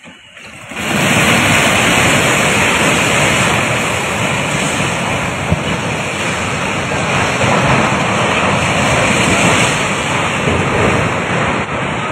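A multi-storey concrete hotel building collapsing into a flood-swollen river. A loud rushing roar of falling debris and spray starts suddenly about a second in and holds steady.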